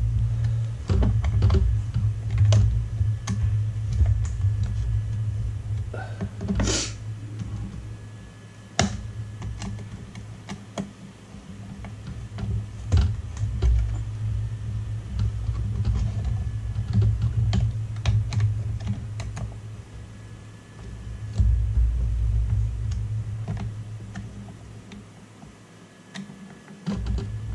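Small clicks and ticks of a long screwdriver turning screws into a plastic touchscreen housing, with one louder clack about seven seconds in, over a low rumble that swells and fades.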